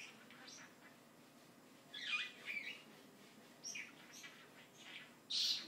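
Pet bird chirping and chattering: a string of short high calls with a busier warbling run about two seconds in, the loudest call near the end.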